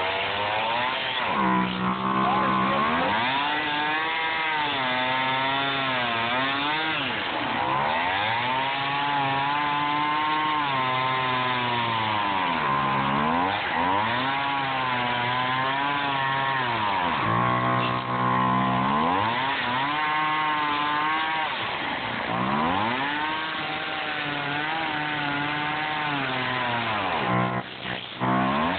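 Two-stroke gas chainsaw cutting through a block of expanded polystyrene foam, its engine revving up and falling back every few seconds as the throttle is worked through each cut. The engine briefly drops off near the end.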